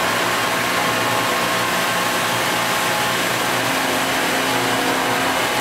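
Hydraulic power unit of a 1,018-ton up-acting hydraulic press running steadily as the press opens after decompression: a steady hum over a broad hiss. An extra low hum joins for a couple of seconds near the end.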